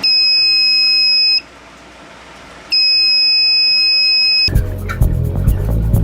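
Electronic alarm buzzer giving two long, steady, high-pitched beeps, each about a second and a half, with a pause between them. Music with a beat starts near the end.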